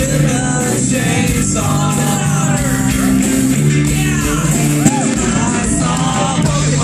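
A live rock band playing, with guitar and a singing voice.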